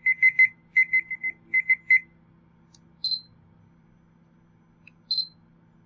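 Short electronic beeps from the Sony Vaio C1 laptop's built-in speakers: about a dozen in quick succession over the first two seconds, rising and falling in loudness as the system volume is stepped with the jog dial. Two single higher-pitched beeps follow, about three and five seconds in.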